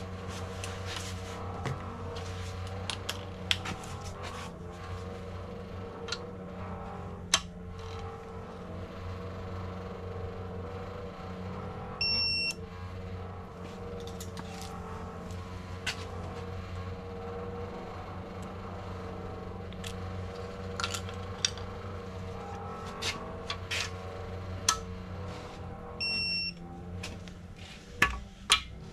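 Digital torque wrench tightening bolts, with scattered ratchet clicks and a short high beep twice, about twelve seconds in and again near the end. Each beep signals that a bolt has reached its 50 Nm target torque. A steady low hum runs underneath.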